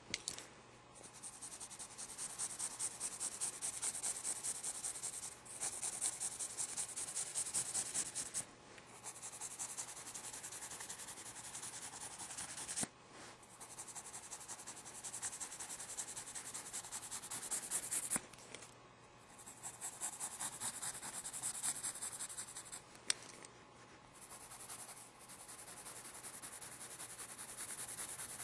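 Pencil scratching on paper in quick, repeated sketching strokes. The strokes come in runs of a few seconds with short pauses between them, and there is a single sharp tick near the end.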